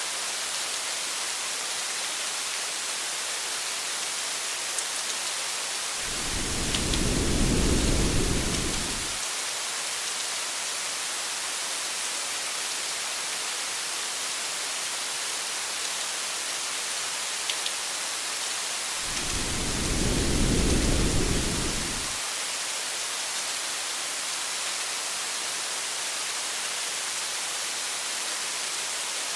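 Steady heavy rain hiss with a few faint drop ticks. Two low rumbles of thunder swell and fade, about six seconds in and again about nineteen seconds in, each lasting about three seconds.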